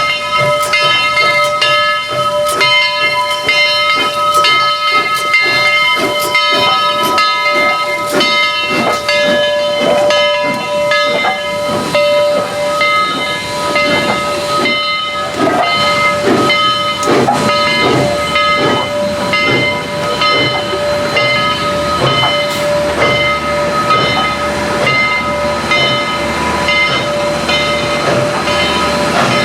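Southern Railway 4501, an Ms-class 2-8-2 Mikado steam locomotive, working under steam: steam hissing, with repeated exhaust chuffs and a steady high whine of several notes held throughout.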